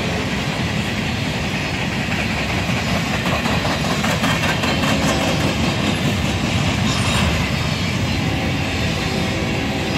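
Freight train of covered hopper cars rolling past at a steady speed, steel wheels running on the rails with a continuous rumble and rapid repeated clicks.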